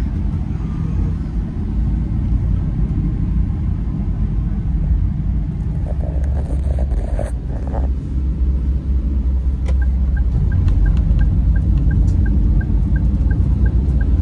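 Steady low engine and road rumble heard inside a moving car's cabin. About ten seconds in, a regular light ticking starts, two to three ticks a second.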